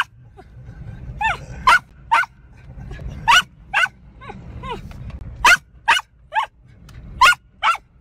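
Dog barking excitedly in short, high yips, about a dozen over eight seconds, above the low rumble of the moving car it rides in.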